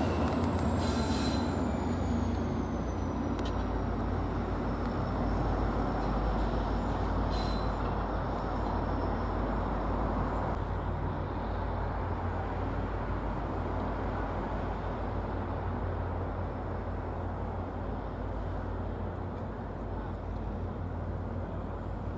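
A train moving along the track: a high wheel squeal falls in pitch and dies away in the first few seconds, leaving a steady low rumble that slowly fades.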